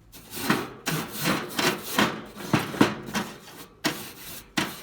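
Metal wire brush scrubbed back and forth across a hot barbecue grill grate, about three scraping strokes a second.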